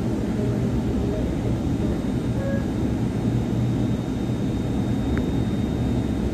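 Delhi Metro train running at speed, heard from inside the carriage: a steady low rumble with a faint, thin high whine.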